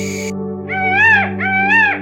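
An animal giving repeated high-pitched calls, each rising then falling in pitch and lasting about half a second; two calls start about two-thirds of a second in, over steady background music.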